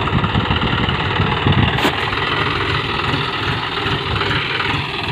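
Small engine of a motorised plough (power tiller) running steadily with a rapid low chugging. There is one sharp click just under two seconds in.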